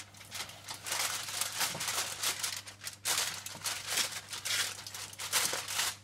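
Aluminium foil crinkling and rustling as a kitchen knife scores slits into the side of a whole gilthead bream lying on it, with a brief lull about halfway through.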